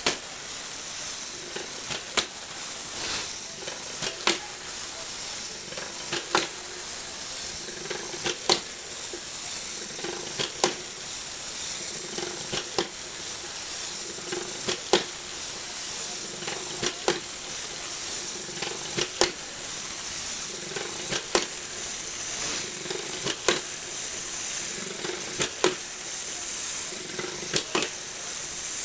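Lego Technic jumping machine: a small electric motor whirring steadily through plastic gears, with a cluster of two or three sharp plastic clacks about every two seconds as the spring-loaded legs release and the feet hit the wooden floor.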